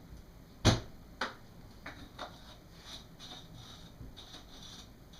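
A sharp plastic click less than a second in, then a few lighter clicks and soft rustling: detergent being handled and put into a dishwasher.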